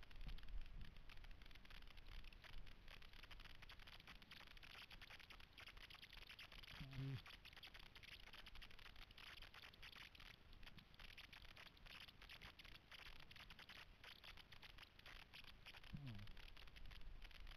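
Near silence: faint hiss with light scuffs and scrapes, broken by a short low voice sound about seven seconds in and a falling one near the end.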